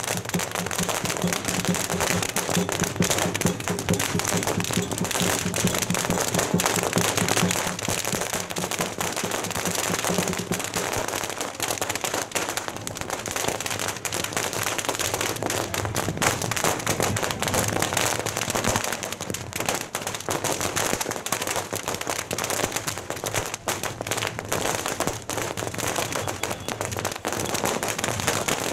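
Long strings of firecrackers exploding without a pause: a dense, rapid crackle of bangs.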